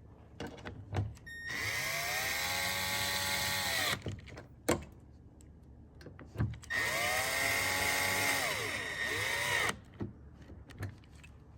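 Cordless drill on low speed running in mirror mounting screws: two runs of about three seconds each, the motor whine steadying after it spins up, with a few clicks and knocks in the pause between.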